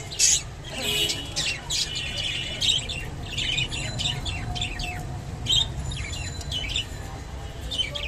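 Budgerigars chirping and chattering in a run of quick, short, high chirps, over a steady low hum.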